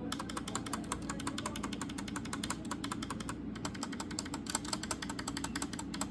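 Long keys of a Cosmic Byte CBGK18 Firefly mechanical keyboard, such as the space bar, shift and backspace, pressed over and over in quick clicks with a short pause about halfway. They make a rattling noise as they wobble on poorly made stabilizers.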